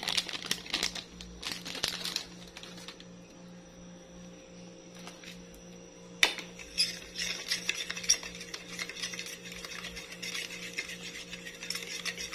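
Plastic powder-mix sachet crinkling as the last of the mix is shaken out. About six seconds in there is a sharp clink, followed by a metal spoon clinking and scraping against a ceramic bowl as coconut powder is stirred into water to break up its lumps. A steady low hum runs underneath.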